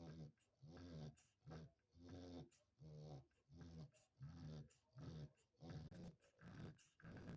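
Dog snoring quietly in a quick, even rhythm of short snores, about two a second.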